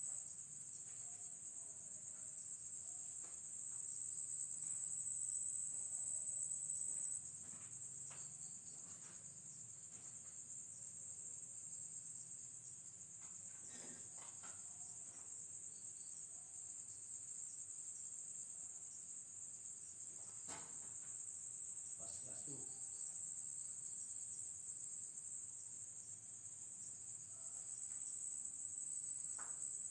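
A steady, high-pitched chorus of night insects, a little louder for the first few seconds and then holding even. A few faint knocks or taps come through about halfway and again a little later.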